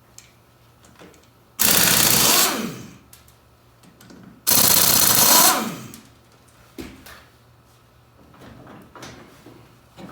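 Impact wrench hammering on the ATV's lug nuts in two bursts of about a second each, a few seconds apart, each winding down in pitch as the trigger is released. A few lighter metallic clicks and knocks follow as the nuts and wheel are handled.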